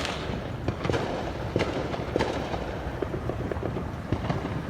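Firecrackers going off: about half a dozen separate sharp bangs at irregular intervals over a steady background haze.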